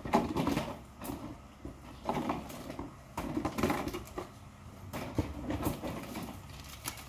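Wire clothes hangers clicking and rattling against each other in several short, irregular bursts as they are separated one by one.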